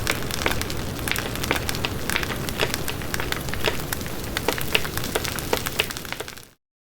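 Steady hissing noise full of quick crackles and pops, fading out and cutting off to silence about six and a half seconds in.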